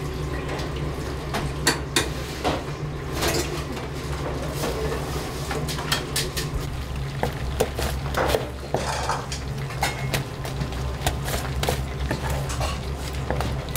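Dishes and cutlery clattering, with many sharp clinks and knocks at irregular intervals over a steady low hum.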